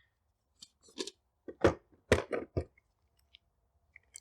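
Hand tools being handled in a tool cart drawer: a quick run of short knocks and clicks, then a few fainter ticks.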